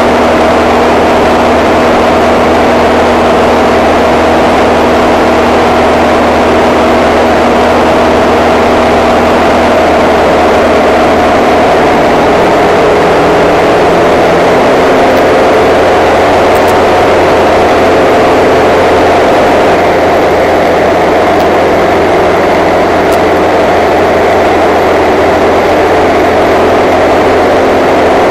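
Engine and propeller of a single-engine light aircraft running steadily in flight, heard from inside the cockpit.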